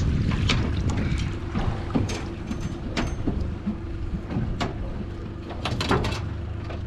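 Crab pot being rinsed and handled aboard a small boat: a string of sharp knocks and rattles, bunched together about six seconds in, over a steady low rumble.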